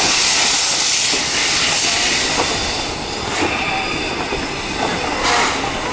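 Steam hissing from the cylinder drain cocks of C11 227, a steam tank locomotive, loudest in the first second and then thinning out. A sharp puff of steam comes about five seconds in.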